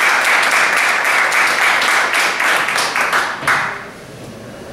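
Audience applauding with many hands clapping, the applause dying away about three and a half seconds in.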